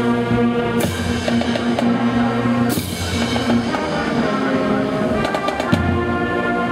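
Marching band playing outdoors: brass holding chords over marching drums, with two crashes in the first three seconds.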